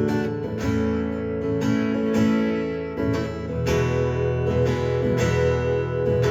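Acoustic guitar strumming chords in a steady rhythm, with no singing; the chord changes a little past halfway.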